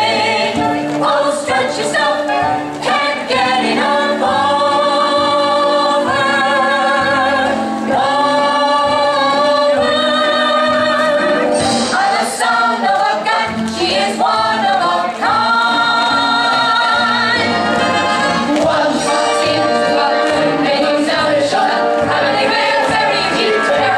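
Recorded song played for a dance routine: several voices singing long, wavering notes over a rhythmic backing track.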